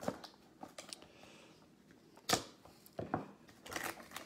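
Trading cards and a cardboard card box being handled: a few sharp clicks and taps, the loudest about two seconds in, and a quick run of small clicks near the end.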